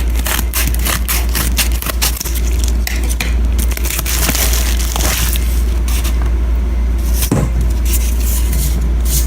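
A mail package being opened by hand: paper and plastic packaging crinkling and tearing in quick crackles, busiest about halfway through, over a steady low hum.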